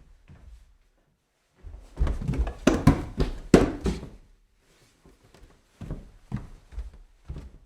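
Footsteps climbing stairs: a quick run of heavy thuds a couple of seconds in, loudest about three seconds in, then a pause and a few slower, separate steps near the end.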